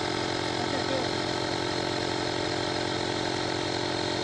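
Tusa 12-volt digital portable tyre inflator running steadily, pumping air into an SUV tyre as it nears its preset 38 PSI.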